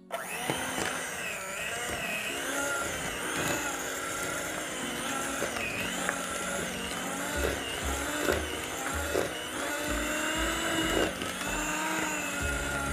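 Electric hand mixer switched on right at the start, its beaters running steadily through thick oat cookie dough in a plastic bowl.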